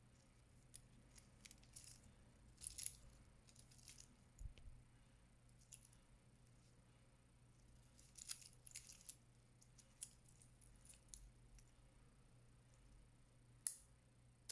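Faint clinks and rattles of a metal expandable watch bracelet being handled, in small clusters with a sharper click near the end.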